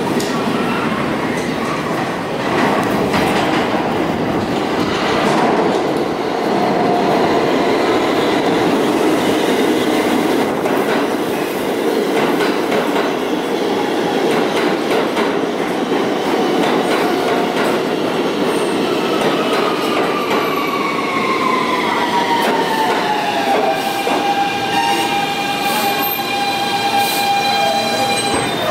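New York City Subway train running into the station, with steady wheel-on-rail noise and clicking over rail joints. In the last third a whine from the propulsion motors falls in pitch as the train brakes, then levels off into a steady tone as it stops.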